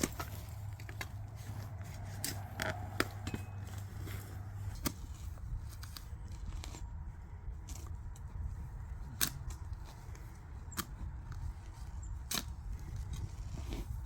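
Landscape weed-barrier fabric being cut and handled: scattered sharp snips and crackles at irregular intervals, over a low steady rumble.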